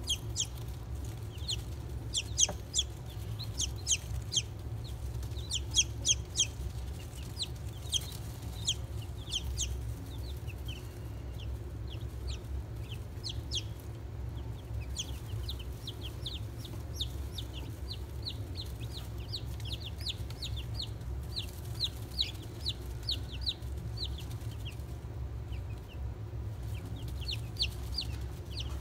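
Newly hatched chicks peeping: many short, high, falling cheeps in quick runs, loudest in the first ten seconds. A steady low hum runs underneath.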